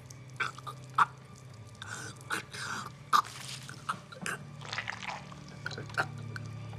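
A man dying from a slit throat: wet gurgling and gasping as he chokes on blood, with a few sharp dripping clicks at irregular intervals over a low steady hum.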